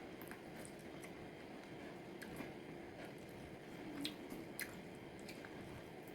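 Soft wet squishing of saucy pepper chicken, with a few sharp clicks over a steady low hiss, the loudest clicks about four seconds in.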